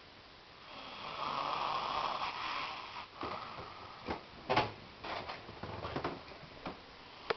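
A person snoring in deep sleep: a long noisy breath of about two seconds, then a string of short, sharp breaths.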